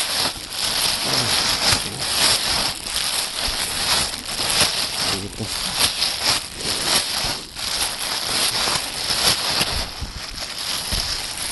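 A plastic bag of dry fishing groundbait being shaken and kneaded by hand: a continuous crinkling rustle of the bag with the loose grains rattling inside, as the flavouring additive is mixed through the feed.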